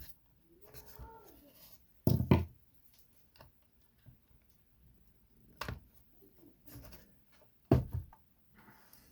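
A few sharp knocks and taps of tools and parts being handled and set down on a workbench, the loudest about two seconds in, another near the middle and a third near the end.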